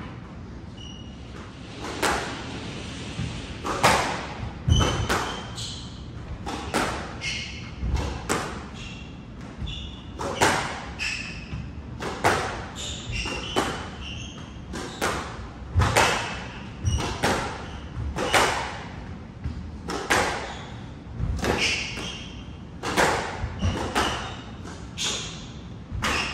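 Squash rally: the ball cracking off the rackets and the front wall about once a second, starting about two seconds in, echoing in the court, with short high squeaks of shoes on the wooden floor between strikes.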